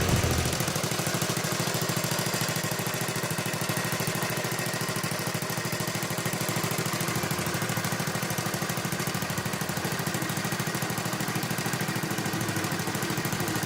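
CD 70 motorcycle's small single-cylinder four-stroke engine idling steadily, a fast even run of exhaust pulses.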